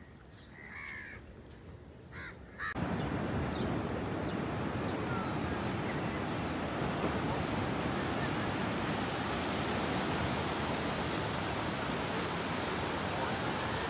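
A crow cawing a few times over faint background, then about three seconds in the sound switches abruptly to the steady wash of sea surf breaking on a sandy beach, with a few faint bird chirps over it.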